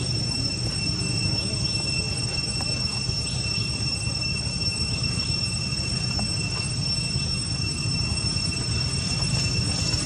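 A steady high-pitched whine held on one pitch without a break, over a low rumbling background noise.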